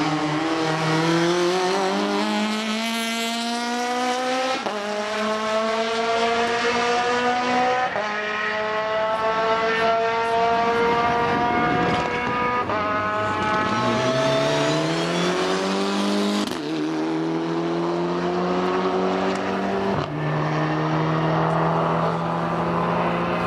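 Rally car engines at full throttle, the engine note climbing and then dropping sharply at each upshift, about every three to four seconds.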